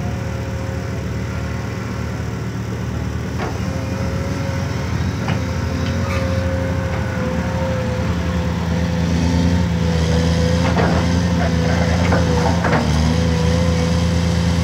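A Caterpillar 320 hydraulic excavator's diesel engine running with a steady whine over it. It works harder and louder from about eight seconds in as the boom digs, with a few scattered knocks.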